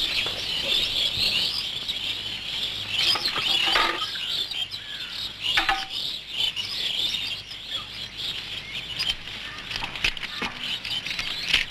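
Birds chirping over a steady, high-pitched background hum.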